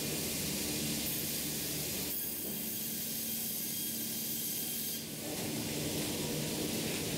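Sawmill machinery running: a steady rushing noise with a low hum, its character changing about two seconds in and again about five seconds in.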